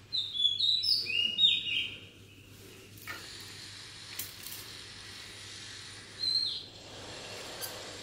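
A bird chirping: a quick burst of short, high chirps in the first two seconds, then a single chirp about six seconds in.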